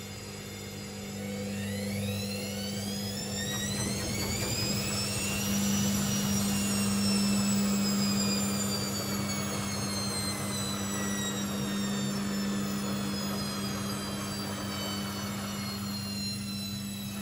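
Hoover VisionTech washing machine's drum motor whining as the drum speeds up, then slowly winding down over several seconds, with a steady low hum underneath.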